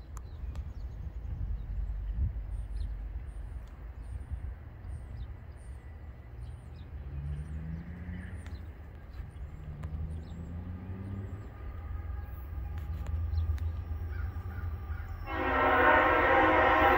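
Diesel freight locomotive's air horn sounding one long chord, starting about fifteen seconds in, as the train approaches. Before it there is a low rumble and a bird chirping over and over.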